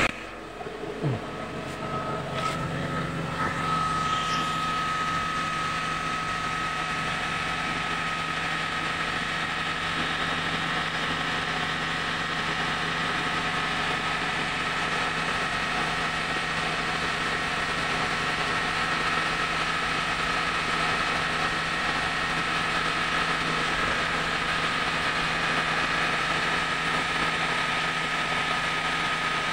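Mitsubishi Grandis engine idling steadily just after starting, with a steady high whine running through it. A few brief knocks in the first few seconds.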